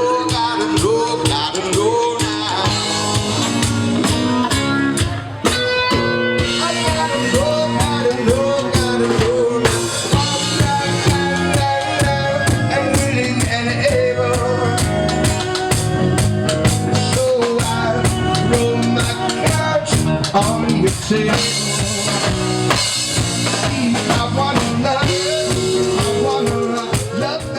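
Rock/blues band music with drum kit, guitar and singing.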